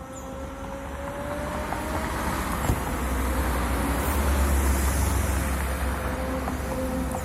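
Suzuki Bandit motorcycle's inline-four engine roaring at a steady pitch, growing louder over the first few seconds and then holding.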